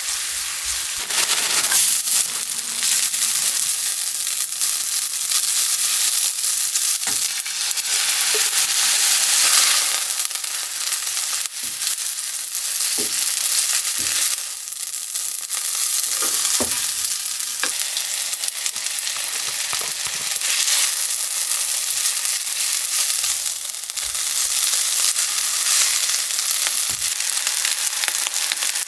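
Food sizzling in a hot frying pan with a steady hiss, broken by scattered light clicks.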